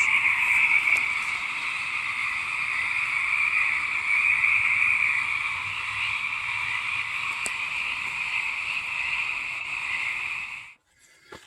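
A dense chorus of many frogs calling at once from a pond, a steady loud din that cuts off suddenly near the end.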